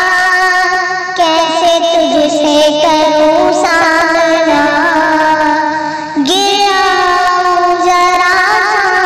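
A naat sung by a single high voice in long ornamented phrases, the notes wavering and sliding; the voice breaks off briefly about one second in and again about six seconds in before starting a new phrase.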